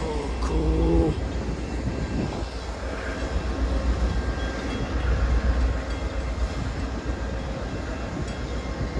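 Amtrak passenger train of double-deck Superliner cars rolling slowly past, a steady low rumble with wind buffeting the microphone.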